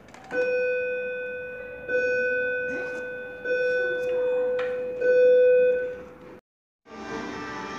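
An electronic chime sounding the same note four times, about a second and a half apart, each note struck sharply and then fading. The sound cuts off abruptly near the end.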